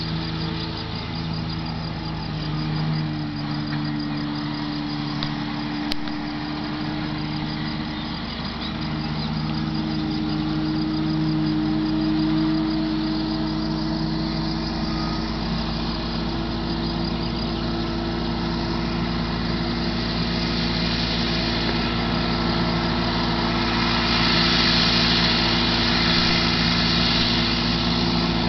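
Massey Ferguson 6130 tractor's diesel engine running steadily under load while driving a Kuhn GMD 600 disc mower through standing hay. The engine note holds steady with slight pitch shifts and grows louder near the end as the tractor comes closer.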